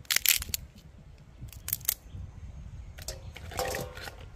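A knife scraping and cracking a piece of crab to clean it, with a few sharp scrapes and crunches in quick clusters. Near the end a short metallic ring as the cleaned crab goes into a steel bowl.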